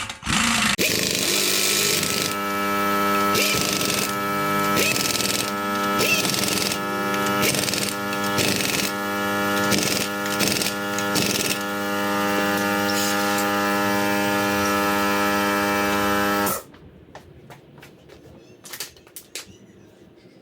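Power tool running in a long steady hum with irregular sharp knocks, typical of an impact wrench driving in the wheel's lug bolts; it stops abruptly about sixteen seconds in, leaving a few faint clicks.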